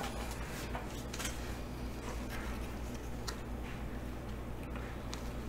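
Trading cards handled and slid through by hand, giving a few faint, sharp clicks, over a steady low hum.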